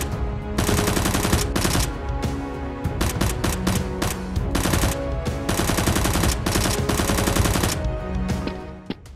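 Rapid bursts of automatic gunfire sound effects, laid over background music, thinning out and dying away near the end.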